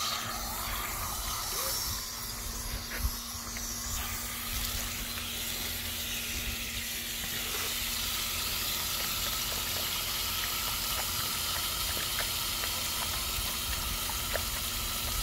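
Water from a garden hose splashing steadily into a muddy puddle: a continuous hiss.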